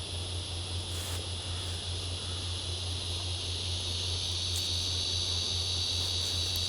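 Steady, high-pitched insect chorus that grows louder around the middle, over a low steady hum, with a single click about a second in.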